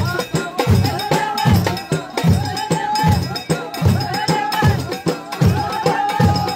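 Ahwach music: a group of large Amazigh frame drums (tallunt) beaten in a steady, driving rhythm, about two strokes a second, with voices singing over the drumming.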